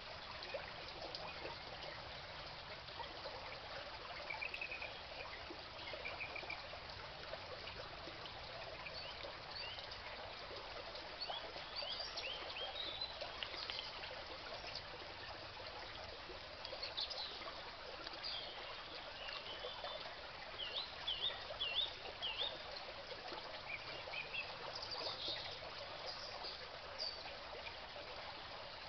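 Shallow stream trickling steadily over stones, with birds chirping now and then, most often in the middle and later part.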